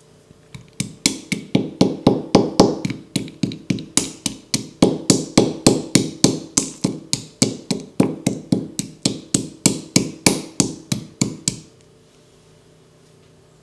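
Dried ginger being pounded with a pestle in a marble mortar: steady strikes, about three a second, each giving a short ringing knock from the stone, stopping shortly before the end.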